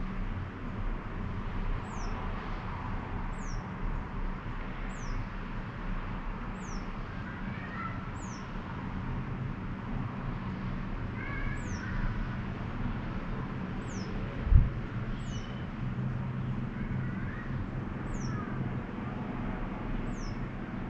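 Outdoor town ambience: a steady low rumble of distant traffic, with a bird's short, high, falling call repeated about every second and a half. A single dull thump comes about fourteen seconds in.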